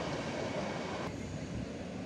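Steady rumble of intercity passenger coaches rolling away along a station platform as the train departs. The rumble cuts off abruptly about a second in, leaving a fainter low rumble.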